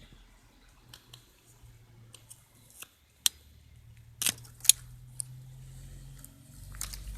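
My Garden Crazy 20 cm ratchet pruning shears clicking as they are worked: a handful of scattered sharp metallic clicks and snaps, the loudest three a little past the middle.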